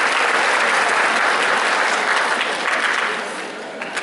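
Audience applauding, a dense steady clapping that dies away over the last second.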